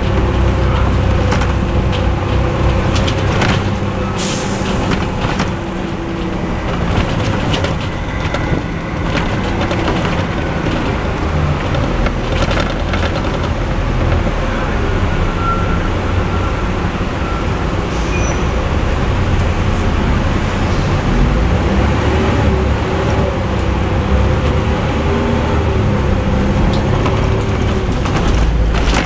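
Cummins LT10 straight-six diesel engine of a Leyland Olympian double-decker bus running as the bus drives along, heard from on board with body rattles. A short hiss about four seconds in.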